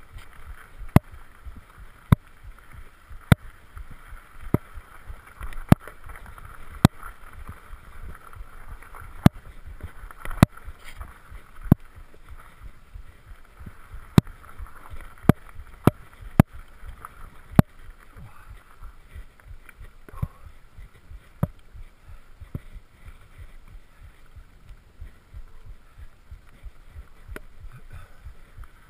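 Surly Krampus mountain bike ridden over a dirt track: a steady low rumble of tyres and wind with sharp knocks and rattles about once a second as the bike jolts over bumps, fewer of them near the end.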